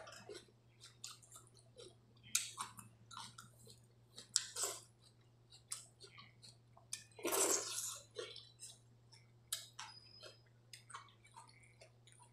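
Close-up eating sounds of watery rice eaten by hand: wet chewing, lip smacks and slurps, with the squelch of fingers stirring rice in water. Short sharp smacks come every second or so, with one longer wet sound about seven seconds in.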